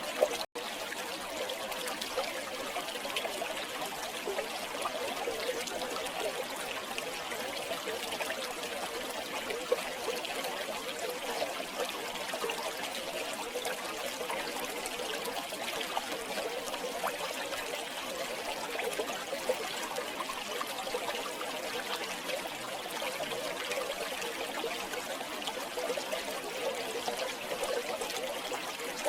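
River water flowing and trickling steadily over stones, a continuous babbling with small splashes.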